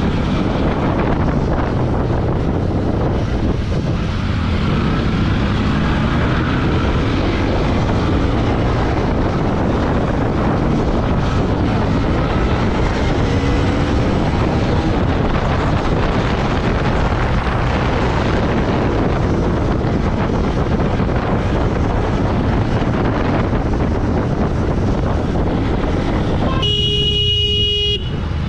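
Motorcycle riding through city traffic: steady engine, road and wind noise. A vehicle horn honks once for about a second near the end.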